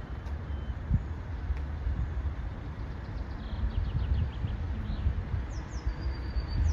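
A low steady rumble with a few short thumps, and a few high bird chirps near the end.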